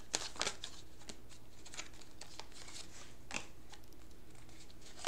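A deck of oracle cards being shuffled by hand: scattered soft clicks and slaps of card against card, a cluster of them near the start and a sharper one about three and a half seconds in.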